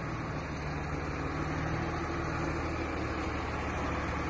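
Dump truck's diesel engine idling with a steady low hum.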